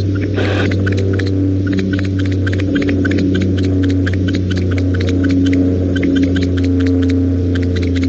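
Steady electrical mains hum from a nest-box camera's microphone, with rapid crackling clicks over it and a short hiss about half a second in.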